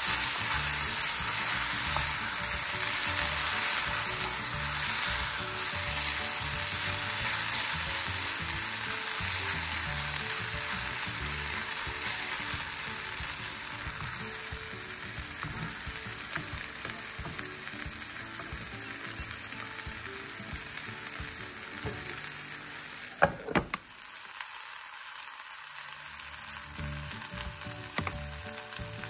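Chopped water spinach sizzling in a pot as it is stir-fried and turned with a wooden spatula: a steady frying hiss that slowly fades. A sharp click about three-quarters of the way through.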